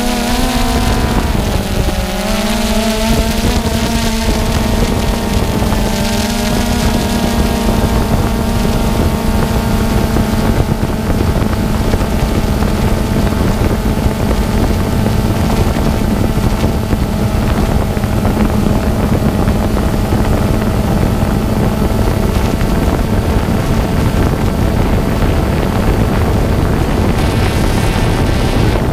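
Quadcopter drone's electric motors and propellers whining loudly, picked up by the GoPro camera riding on the drone. The pitch dips and wavers over the first few seconds as the motor speed changes, then holds steady.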